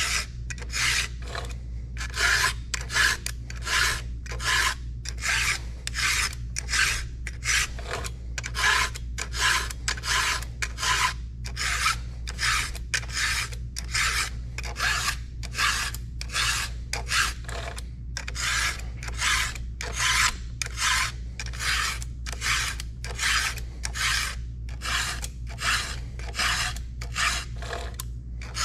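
A 7/32-inch round chainsaw file in a file guide rasps across the cutters of a Stihl 33RS full-chisel chain in steady back-and-forth strokes, about two a second: sharpening the chain by hand.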